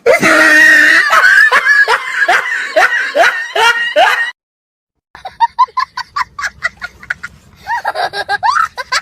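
Two laughter sound effects, one after the other: a loud laugh of repeated falling "ha" bursts that cuts off about four seconds in, then after a short silence a second laugh of quick, short, choppy bursts.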